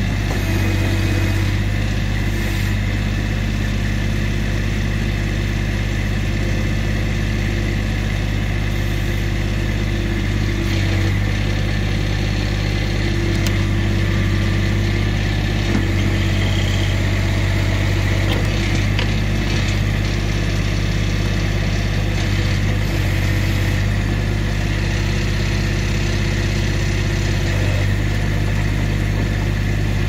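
Massey Ferguson GC1725 compact tractor's diesel engine running steadily at a constant speed.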